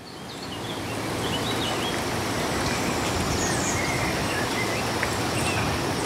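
Cloud-forest ambience fading in over the first second or so: a steady, even rush of noise with scattered short bird chirps.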